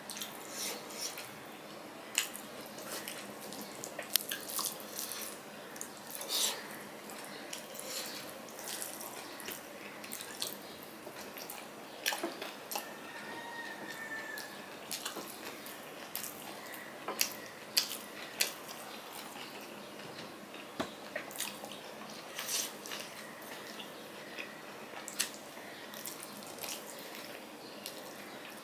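Close-up eating sounds: wet chewing and lip smacking, with fingers squishing curry-soaked food on a steel plate. Irregular sharp clicks and smacks throughout.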